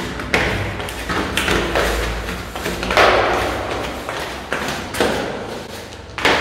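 Footsteps going down concrete stairs in an echoing stairwell: a series of heavy thuds, the loudest about three seconds in.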